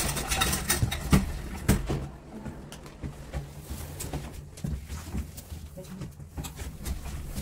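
Knocks and handling noise from a handheld phone as people move into an elevator car, the two loudest knocks about a second in and just before two seconds in. After that there are quieter shuffles and clicks over a steady low hum.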